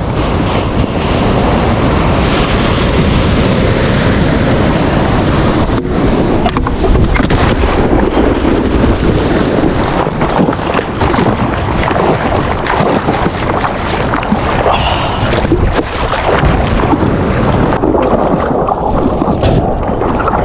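Surf and rushing, splashing water around a surfboard being paddled out through whitewash, with wind and water buffeting the microphone. The hiss turns more muffled for a couple of seconds near the end.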